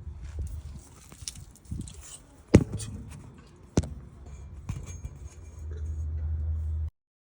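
Two sharp metallic clanks about a second apart, with lighter clicks around them, from metal parts under a car, over a low rumble. The sound cuts off abruptly near the end.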